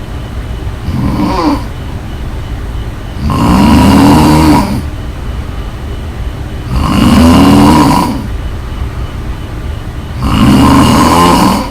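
A person snoring loudly in a steady rhythm: a softer snore about a second in, then three long, loud snores about three and a half seconds apart, with quieter breathing between.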